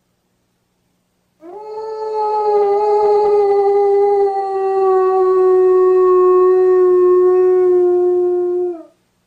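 A German Shepherd dog howls one long, unbroken howl. It starts about a second and a half in, holds for about seven seconds while slowly sinking a little in pitch, then stops.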